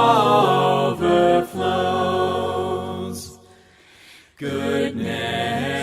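A group of voices singing a hymn a cappella, breaking off briefly for a breath about three and a half seconds in before the next line.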